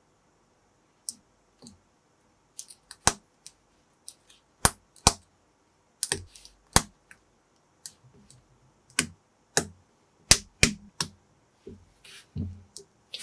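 Lego-compatible plastic bricks clicking as they are pressed and snapped together by hand: about twenty sharp, irregular clicks, some in quick pairs.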